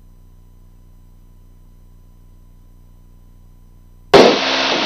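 Cirrus SR22's engine at takeoff power during the takeoff roll, heard only as a faint, steady low hum through the aircraft's intercom audio, with a thin steady tone above it. About four seconds in, a loud burst of radio hiss opens with a click and cuts off under a second later.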